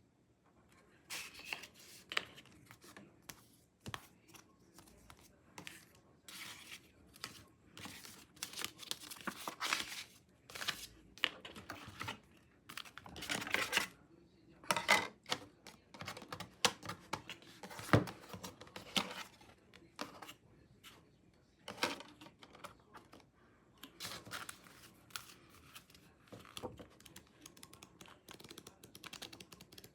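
Album packaging being unwrapped by hand: irregular tearing and crinkling rustles of wrapping, with an occasional sharp click or tap.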